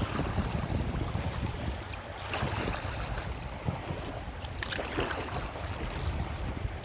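Kayak paddle strokes: the blade dipping into the sea and splashing beside an inflatable kayak's hull, a stroke about every two and a half seconds, over a steady rumble of wind on the microphone.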